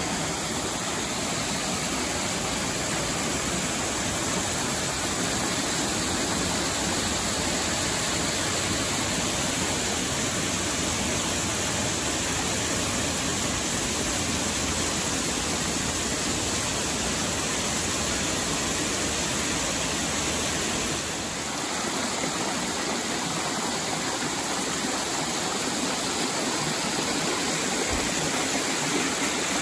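Steady rush of a mountain brook cascading down over rock ledges in a series of small waterfalls.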